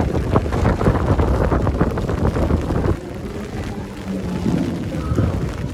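Rain falling on an umbrella held over the microphone, many small drop hits, with wind rumbling on the microphone. The rumble drops away suddenly about halfway through, leaving the rain quieter.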